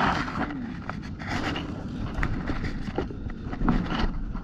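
Steady low rumbling noise, like wind or handling on the microphone, with a few scattered light taps and scrapes.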